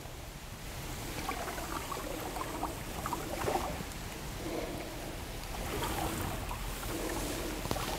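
Water lapping and gurgling against the hull of a punt as it is poled along, with one sharp knock near the end.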